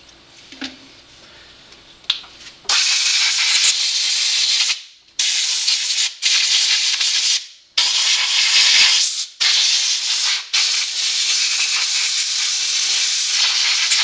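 Compressed-air blow gun hissing in several long blasts with short breaks between them, starting about three seconds in, blowing rubbing alcohol and loosened dirt off an RC nitro buggy's chassis and A-arms.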